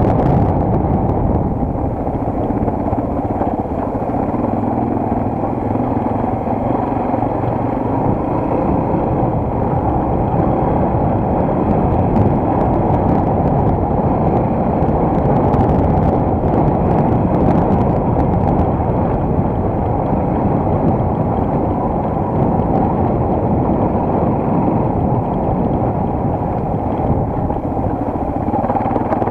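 Single-cylinder enduro motorcycle engine running steadily while riding.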